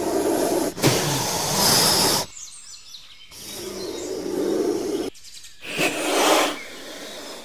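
Outdoor field noise with birds chirping and a rushing, hiss-like noise, cut off abruptly about two and five seconds in.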